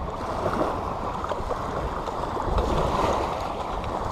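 Steady rushing of wind and small waves lapping in shallow salt water, with no clear single event.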